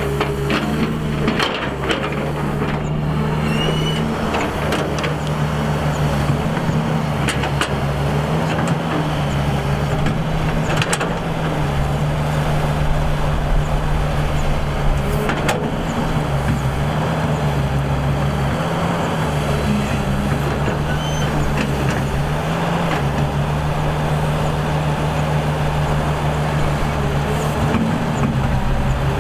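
Excavator's diesel engine running steadily, its pitch stepping up and down every few seconds as the load changes while it digs. A few sharp knocks and clanks stand out over the engine.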